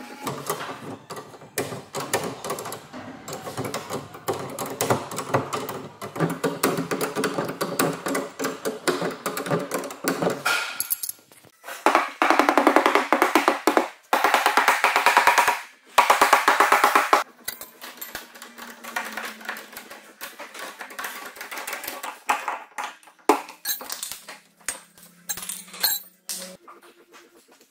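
Background music with drums and percussion.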